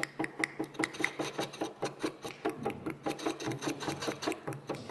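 Wood lathe running with a turning tool held against the spinning wooden workpiece, scraping in rapid rhythmic strokes about six a second, as the tool takes off wobble on the turning.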